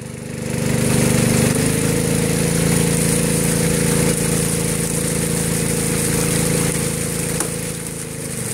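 Small gas engine driving a high banker's water pump, throttled up over the first second or two and then running steadily at high speed. The pump is opened up to blast water through the sluice box and flush it out.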